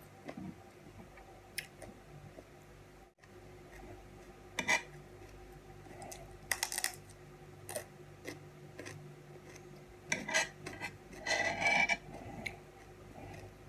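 A table knife clicking and scraping against a serving tray as soft white cheese is cut, in several short bouts, the longest and loudest near the end. Close-up eating sounds come between the bouts.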